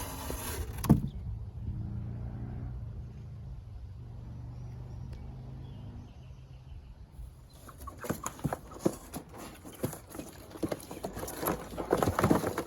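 A low steady engine hum for the first several seconds, then from about halfway in a busy run of knocks, taps and scuffs as the cardboard box holding the young hens is handled at the coop door.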